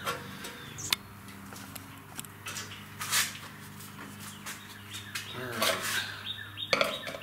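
Light clicks and knocks of a plastic measuring cup and oil containers being handled during a small-engine oil change, over a steady low hum, with a few bird chirps.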